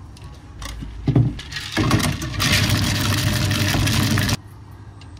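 A thump about a second in, then a machine runs loudly for about two and a half seconds and cuts off suddenly.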